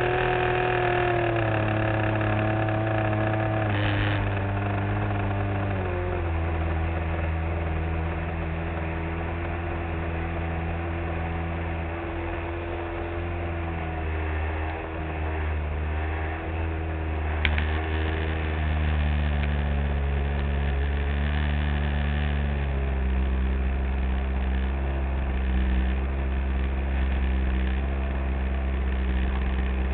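R/C model airplane's engine and propeller running in flight, heard from on board. The drone steps down in pitch a few times in the first six seconds as the throttle is eased. It rises again about two-thirds of the way through and settles a little lower a few seconds later.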